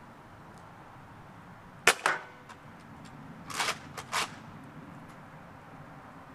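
Nerf Rival Apollo foam-ball blaster working: a sharp double snap about two seconds in, then a second pair of clacks about half a second apart a moment later, from the blaster's firing and priming mechanism.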